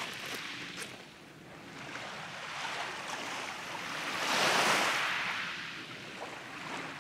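Small sea waves washing in at the water's edge: a steady hiss of water that swells into one louder wash about four seconds in, then fades.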